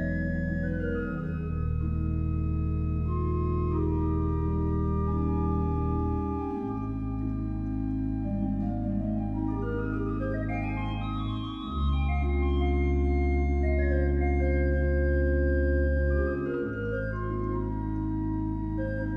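Organ playing long held low chords that change about every five seconds, with runs of notes climbing and falling above them.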